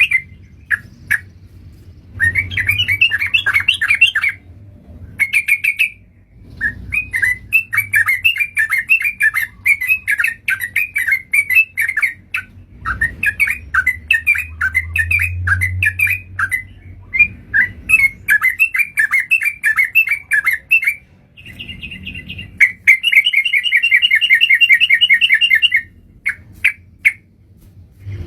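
Yellow-vented bulbuls (trucukan) chattering in fast, bubbly phrases a few seconds long, separated by brief pauses.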